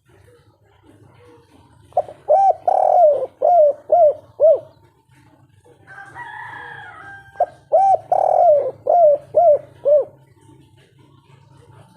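Spotted dove (tekukur) cooing in the 'kuk 3' pattern: two phrases, each of a few short coos, one longer swelling coo, then three short falling coos. A fainter, scratchier call sounds between the phrases over a low steady hum.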